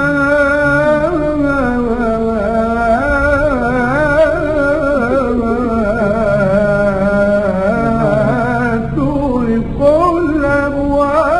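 A solo voice sings an Arabic devotional qasida, drawing out long, ornamented melismatic notes with no clear words.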